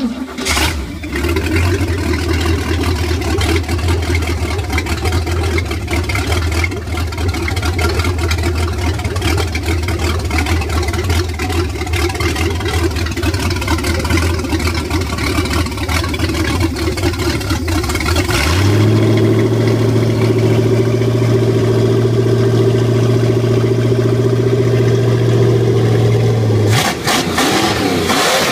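MerCruiser 188 marine engine, a Ford 5.0 V8, fires up and idles steadily. About two-thirds of the way through, the throttle is opened and it runs at a higher, steady speed for several seconds, then drops back near the end.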